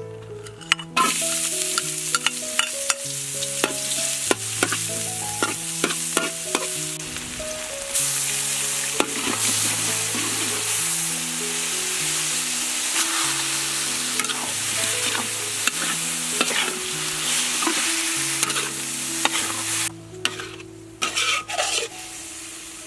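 Chopped garlic, shallot and green onion tossed into hot soybean oil in a wok, frying with a loud, steady sizzle that starts suddenly about a second in. A spatula clicks and scrapes against the wok as the aromatics are stirred. The sizzle drops away near the end.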